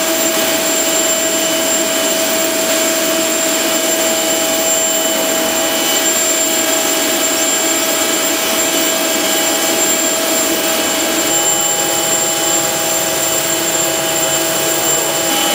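Turbine of a parked aircraft running steadily: a loud, even rush of noise with several fixed high whining tones over it.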